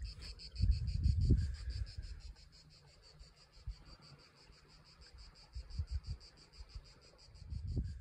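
Crickets chirping in an even, high-pitched pulse, several chirps a second. Low rumbles on the microphone about a second in and again near the end are the loudest sounds.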